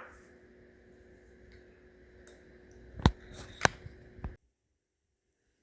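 Plastic parts of an electric pressure washer being handled during assembly: a light click, then two sharp knocks about half a second apart, over faint room hiss. The sound then cuts to dead silence.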